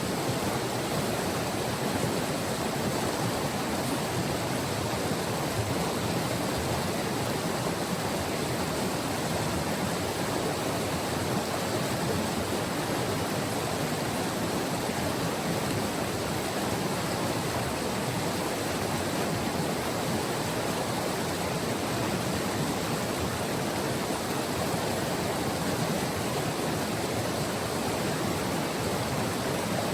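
The White River's water flowing over its bed, a steady rushing with no change in level.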